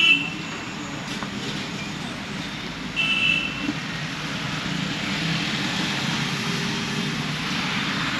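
Steady street traffic noise with short vehicle horn toots, one right at the start and another about three seconds in.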